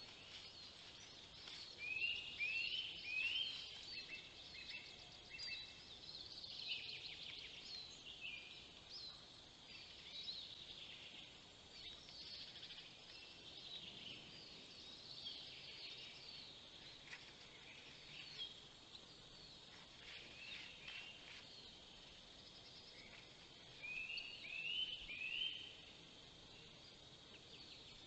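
Several songbirds singing, a run of chirps and trills throughout. The loudest is a phrase of three short rising notes, heard about two seconds in and again near the end.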